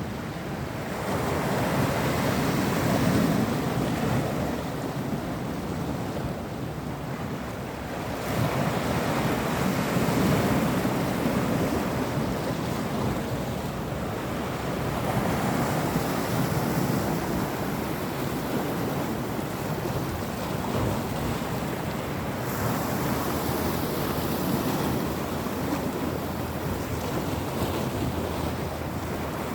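Sea waves washing onto the shore of a cove, the surf swelling and easing every six or seven seconds, with wind buffeting the microphone.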